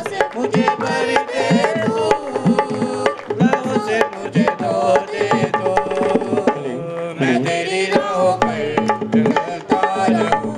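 Live devotional song music: a hand drum keeps a steady beat of low, pitch-bending strokes, about two a second, under a melody line.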